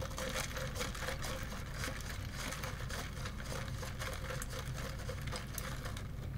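Dense small crackling and clicking from eating and handling food close to the microphone, over a steady low hum.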